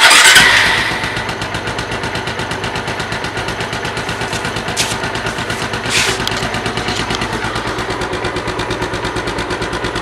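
Bajaj Pulsar 220F's single-cylinder engine idling through its stock exhaust with the muffler still fitted. It is louder for the first second, then settles into a steady, even idle.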